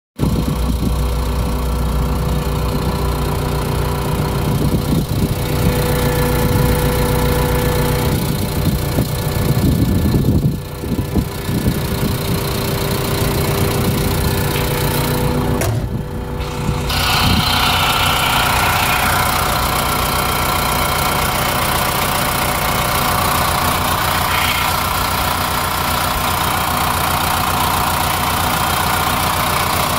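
John Deere 655C crawler loader's diesel engine idling steadily. From about halfway it is heard up close in the open engine compartment, with more fan and belt hiss over the engine hum.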